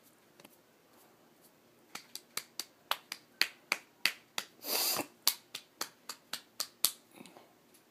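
Fingers tapping on a bare pregnant belly: a run of sharp taps, about four a second, starting about two seconds in, with a short rubbing scrape of the hand on the skin in the middle.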